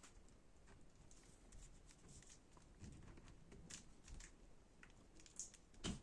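Faint, scattered clicks and taps of small laptop parts being handled during reassembly, with a sharper click near the end.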